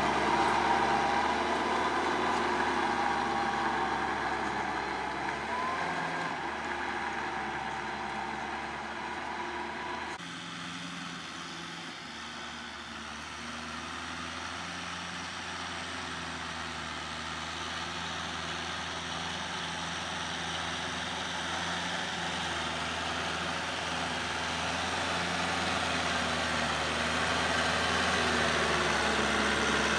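Kubota L5018 tractor's diesel engine running steadily under load while pulling a rotary tiller. The sound changes and drops a little about a third of the way in, then grows louder toward the end as the tractor comes closer.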